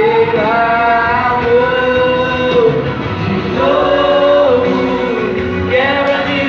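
Church vocal group singing a Portuguese-language gospel song together, holding long notes and sliding between pitches.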